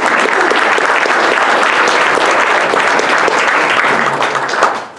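Audience applauding, many hands clapping at once, the applause dying away near the end.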